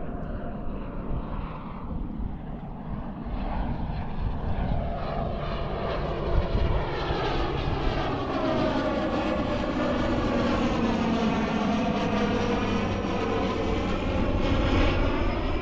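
Airplane flying overhead: a steady engine drone that grows gradually louder, its tones slowly sliding in pitch as it passes.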